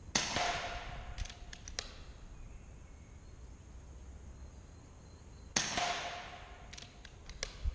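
Two shots from a magazine-fed air rifle about five and a half seconds apart, each a sharp crack with a short echoing tail, followed a second or so later by a few quick clicks as the action is cycled for the next pellet.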